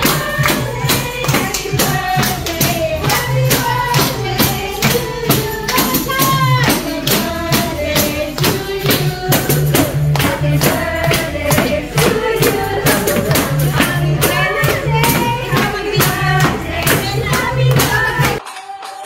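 A lively birthday song sung over a steady beat, with tambourines and hand claps keeping time at about three to four strikes a second; it cuts off abruptly near the end.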